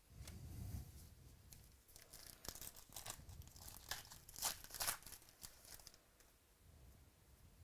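Faint crinkling and tearing of baseball card packaging as packs are opened and cards are handled, with a cluster of louder crinkles about four to five seconds in.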